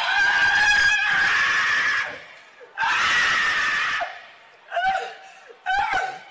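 A woman screaming: two long, high screams, then two short cries near the end.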